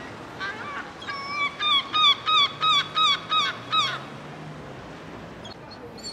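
A gull calling: a few opening notes, then a run of about eight short, loud, falling yelps at about four a second, stopping about four seconds in.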